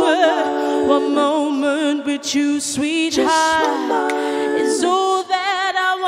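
A woman singing a cappella, with several vocal parts layered in harmony: held chord notes under a lead line that wavers with vibrato.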